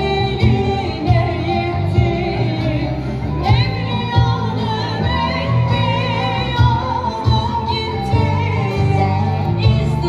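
A woman singing a Turkish folk song live, her melody wavering and ornamented, over bağlama (long-necked saz) accompaniment and a regular low beat, all amplified through an outdoor PA system.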